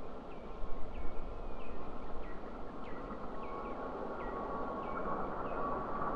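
Gulfstream G600's twin Pratt & Whitney PW815GA turbofans heard at a distance during the take-off run: a steady jet roar with a whine that grows louder toward the end. A small bird chirps repeatedly over it.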